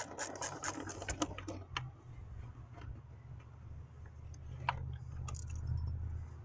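Metal hand-tool clicks and clinks as valve cover bolts are worked loose: rapid clicking for about the first second and a half, then a few scattered sharp clinks. A steady low hum runs underneath.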